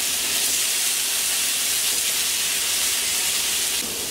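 Par-boiled potato halves sizzling cut side down in hot oil on a griddle pan, searing a crust: a steady hiss that drops a little near the end.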